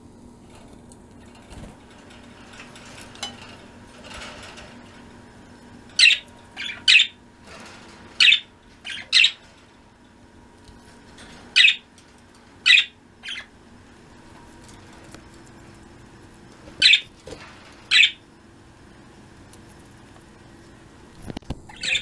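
Pet budgerigars (budgies) chirping: about a dozen short, sharp calls, often in twos and threes, with gaps of a second or more between them.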